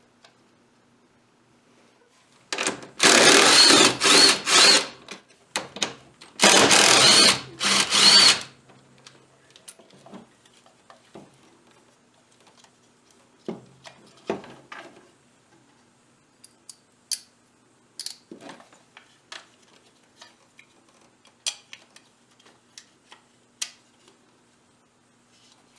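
Power drill running in two bursts of about two seconds each, a couple of seconds apart, backing out the mower control panel's two screws. Then scattered light clicks and taps of small parts being handled.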